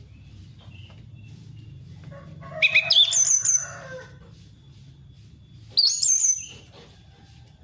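Orange-headed thrush singing: a long, varied phrase of quick whistled notes about two seconds in, then a shorter phrase about six seconds in, over a faint low hum.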